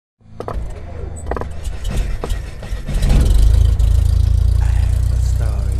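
Logo-intro sound effect: a low, steady rumble with several sharp clicks and hits in the first couple of seconds, swelling louder about three seconds in and holding.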